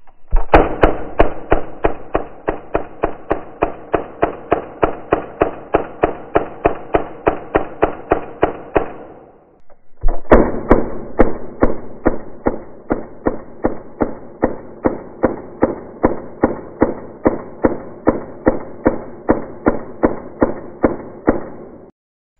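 A 1928 Thompson submachine gun with a Cutts compensator firing .45 ACP in two long full-auto bursts, played back slowed down. The result is evenly spaced deep shots, about four a second, then a little slower after a break of about a second. The sound cuts off suddenly near the end.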